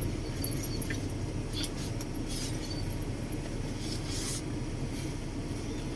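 Steady low rumble of a vehicle on the move and street traffic, with a single sharp click about half a second in and a few brief high hisses.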